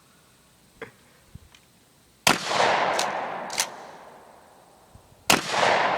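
Two gunshots about three seconds apart, each with a long rolling echo that fades over a couple of seconds, and two sharp cracks following each shot.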